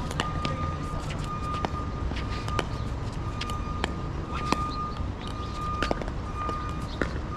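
Pickleball paddles striking a plastic pickleball and the ball bouncing on the court: a dozen or so sharp pops at an irregular pace, over a steady low rumble.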